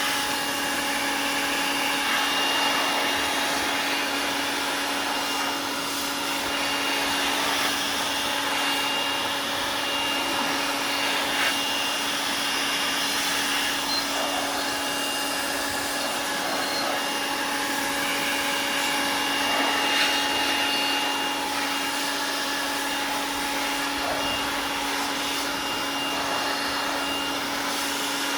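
Electric air blower running steadily with a motor whine, blowing dust out of a desktop computer.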